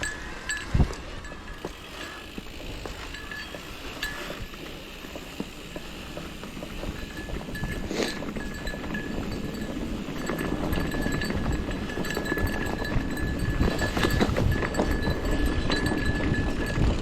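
Mountain bike riding on a trail: tyre and wind rumble that grows louder toward the end, with scattered knocks and a thin, on-and-off metallic ringing like a small bell jingling.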